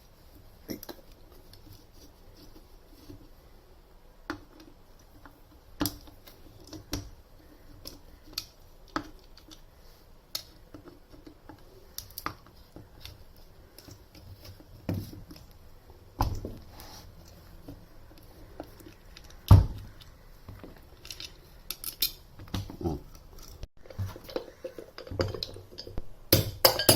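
Metal parts of a ceiling fan motor clinking and knocking as the motor is handled and taken apart by hand: scattered clicks and taps, one louder knock about two-thirds of the way through, and a busier run of clatter near the end.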